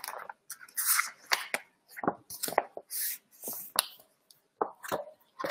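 Paper handling: a textbook's pages being turned and leafed through, heard as a series of short, irregular rustles and taps.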